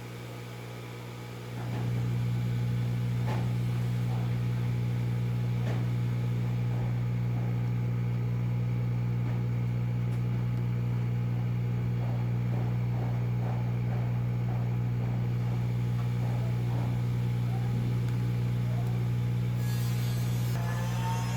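Hot air rework station blowing steadily while desoldering a coil from a circuit board: its fan hum switches on about a second and a half in and holds steady, with faint light ticks over it.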